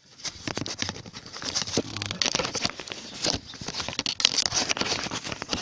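Rustling and crackling noise on a hand-held tablet's microphone, with many sharp irregular clicks.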